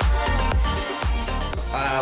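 Background music with a steady beat and heavy bass.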